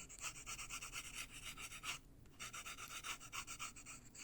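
Colored pencil (Prismacolor) scratching on paper in quick back-and-forth shading strokes, several a second, breaking off briefly about two seconds in.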